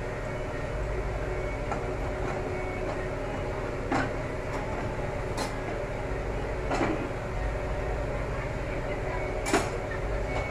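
A few light clanks of steel kitchenware, a kadhai gripped with pakkad tongs knocking against the stove, four in all, the loudest near the end as the kadhai is lifted, over a steady background hum.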